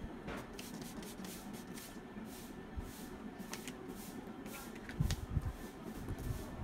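Pump bottle of makeup setting spray misting the face in a series of short sprays, with a few low thumps of handling about five seconds in.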